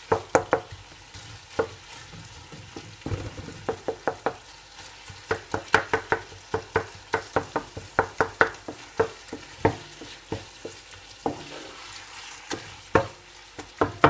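Wooden spatula stirring minced chicken in a coated cooking pot, knocking and scraping against the pot in irregular strokes that come quicker in the middle, over a faint frying sizzle.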